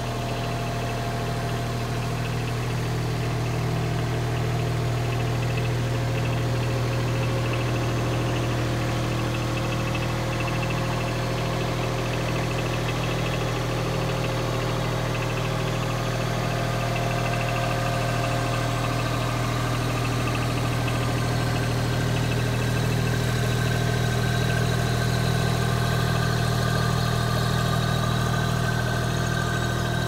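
Bobcat MT55 mini track loader's diesel engine idling steadily with an even low hum.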